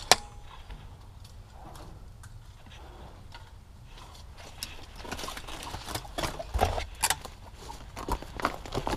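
Footsteps crunching on gravel, a run of irregular steps starting about halfway through, after a single sharp click just after the start.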